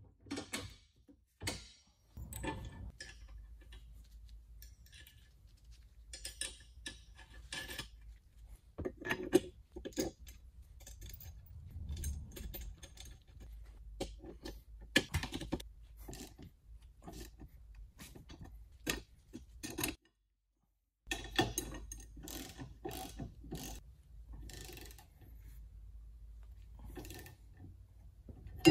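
Spanners working the nuts and bolts that hold a swan neck tow ball to its mounting plate: irregular metallic clicks and clanks as the fasteners are fitted and tightened, with a gap of about a second roughly two-thirds through.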